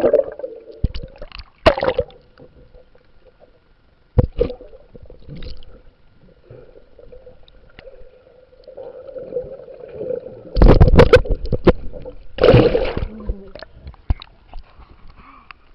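Muffled water gurgling and sloshing around a camera dunked underwater. Loud splashy surges come at the start and again about two and four seconds in, and the loudest stretch is from about ten to thirteen seconds in.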